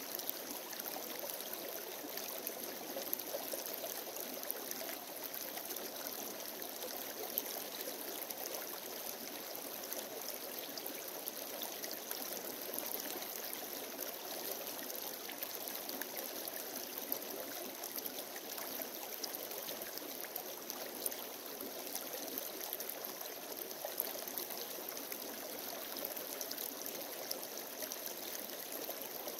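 Shallow, rocky creek running steadily over stones, with a few faint clicks scattered through.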